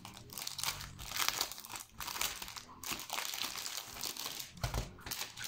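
Clear plastic packaging crinkling as a rolled diamond painting canvas in its plastic sleeve is handled and unrolled, with a dull thump near the end.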